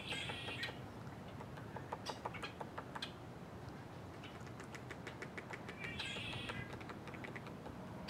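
Acorn woodpecker pecking at a pine branch, runs of quick sharp taps about two and five seconds in. Short bird calls sound at the start and about six seconds in.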